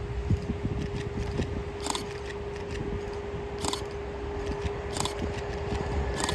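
Train running past on the rails: a steady low rumble with a constant hum, broken four times by short, sharp sounds from the wheels on the track.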